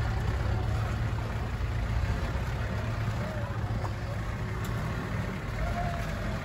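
Land Rover 4x4's engine running steadily, a continuous low drone with road noise.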